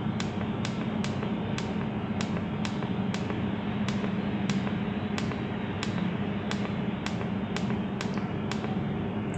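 Steady machine hum with a sharp, evenly spaced tick about twice a second over it.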